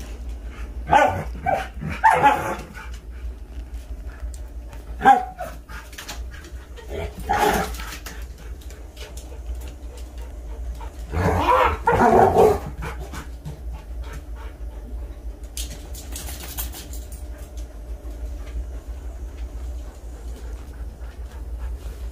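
Husky-type dog barking in short bursts, with a longer run of vocalising about eleven to twelve and a half seconds in.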